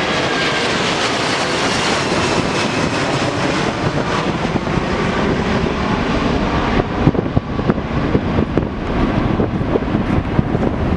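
Airbus A330's twin jet engines at takeoff power as the airliner climbs out overhead: a loud, steady rushing roar with a whine that falls in pitch over the first couple of seconds as it passes, turning into a rougher, crackling rumble from about seven seconds in as it moves away.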